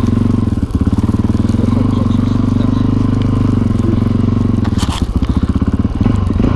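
Motorcycle engine running steadily at low revs with an even pulsing beat, while the bike rides through snow. A brief sharp knock comes a little under five seconds in.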